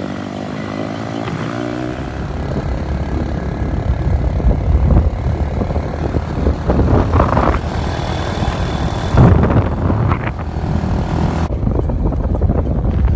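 Motorcycle on the move, its engine running under a heavy low rumble of wind buffeting the microphone.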